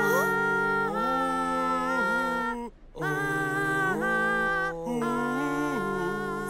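A cartoon character singing long, held notes without words, breaking off briefly twice between phrases.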